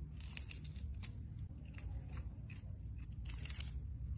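Kitten biting and chewing a small fish: a string of irregular, crunching clicks.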